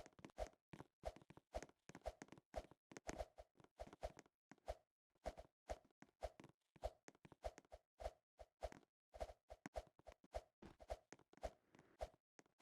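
A series of faint, short taps or clicks at an uneven pace, a few each second.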